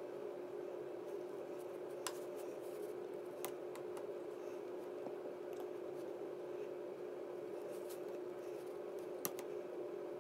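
Allen wrench turning out the small screws of an RC crawler's portal housing: a few faint, sharp metal clicks, the loudest near the end, over a steady background hum.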